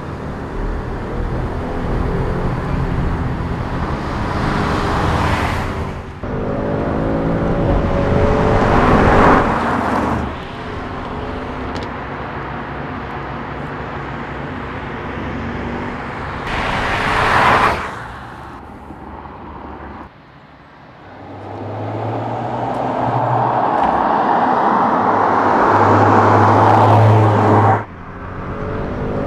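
Audi S4 Avant's 3.0-litre V6 engine accelerating in a series of short runs, its pitch rising in sweeps, with sudden cuts between them. Near the end a long swell of engine and road noise builds and then stops abruptly.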